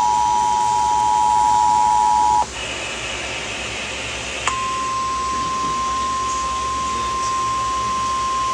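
Emergency Alert System attention signal over FM radio: a steady two-tone alert that cuts off abruptly, a couple of seconds of hiss, then a single steady alert tone (the 1050 Hz NOAA Weather Radio warning tone) that comes in sharply and holds. This tone sequence introduces a severe thunderstorm warning.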